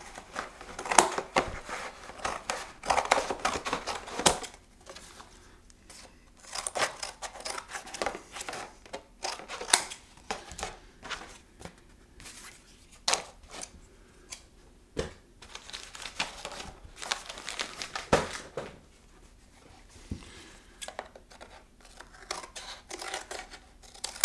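Scissors cutting through corrugated box cardboard: an irregular series of snips and crunches, with the cardboard rustling and scraping as the sheet is moved and turned.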